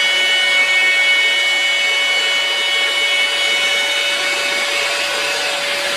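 DeWalt compact router on an X-Carve CNC machine running at speed while milling a slot in a hardwood board: a steady whine of several high tones over a continuous rush of noise.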